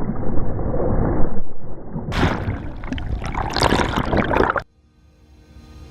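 Water splashing and bubbling as divers jump in from a boat, muffled for the first two seconds, then a brighter, crackling rush of bubbles. It cuts off abruptly near the end, and music fades in.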